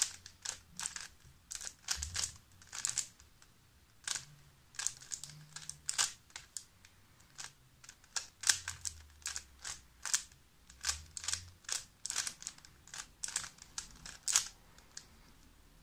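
A ShengShou magnetic 3x3 speed cube being scrambled by hand: quick, irregular plastic clicks and clacks as its layers are turned, several a second, stopping near the end.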